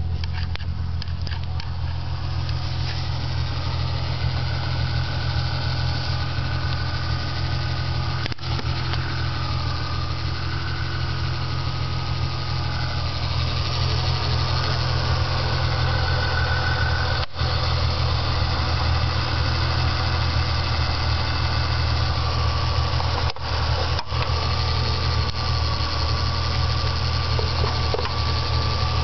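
1997 Ford Mustang's 3.8-litre V6 engine running at a steady speed. The owner hears a chatter or knock from this engine and can't tell whether it is lifter noise or rod knock.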